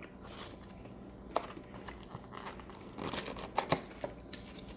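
Paper food packaging crinkling and rustling as it is handled, with scattered small clicks. It is busiest about three seconds in.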